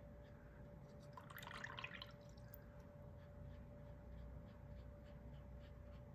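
Faint dabbing and brushing of a wet watercolor brush on paper, a soft scratchy stroke about a second in, then small light ticks, over a quiet room with a faint steady hum.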